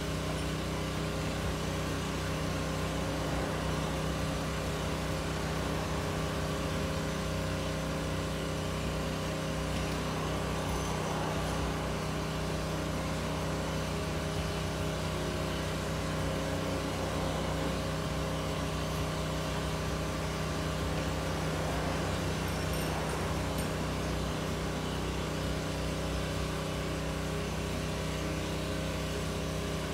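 Steady machine hum with several held tones and a low drone, unchanging throughout.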